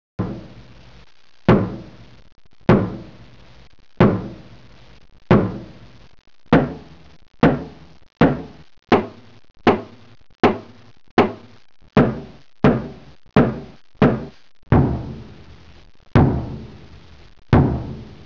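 A series of heavy percussive hits, each ringing and fading away, in a dramatic soundtrack. They come about every second and a half at first, quicken to nearly two a second through the middle, and slow again near the end.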